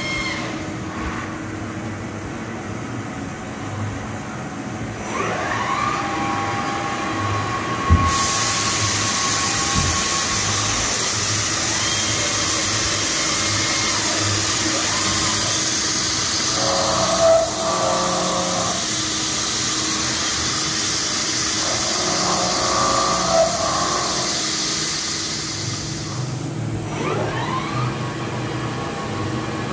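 Three-axis CNC machining center running its program. The spindle winds up about five seconds in. At about eight seconds a loud spray hiss comes on suddenly and runs until near the end, when it eases off and the spindle pitch glides again.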